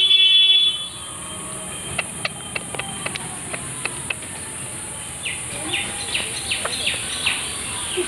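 A short, steady horn-like toot lasting about half a second at the start, then scattered sharp clicks and, in the second half, a run of short high chirps, over a steady high-pitched insect drone.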